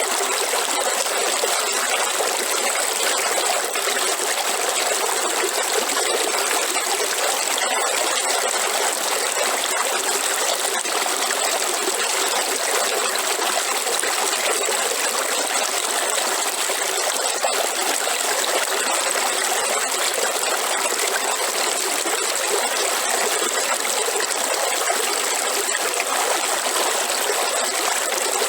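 River water running steadily over stones, an even rushing and trickling with no change.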